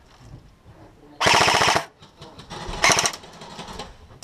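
Airsoft rifle firing two short full-auto bursts: a rapid, even rattle of shots about a second in lasting about half a second, then a briefer burst near three seconds.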